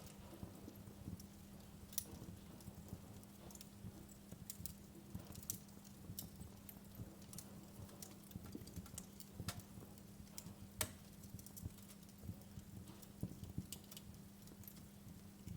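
Wood logs burning in a fireplace, crackling with irregular sharp pops, the loudest about two seconds in and again near eleven seconds.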